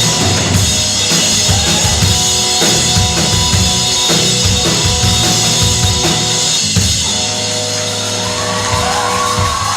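Live rock band playing an instrumental passage: a drum kit hitting steadily under held electric guitar notes, with gliding notes near the end.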